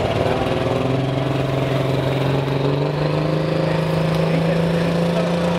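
Modified diesel pickup truck engine running at the starting line of a truck pull, its pitch climbing slowly as the revs are brought up before the launch.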